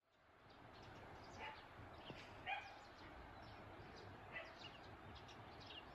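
Faint rural spring ambience that fades in from silence: small birds chirping steadily, and a dog barking about three times, loudest about two and a half seconds in.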